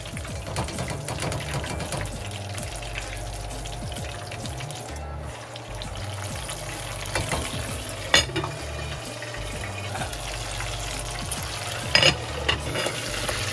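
Pork pieces deep-frying in hot vegetable oil in a pot: a steady crackling sizzle. Two sharp metal clinks of the tongs and the lid against the pot, about eight seconds in and again near the end.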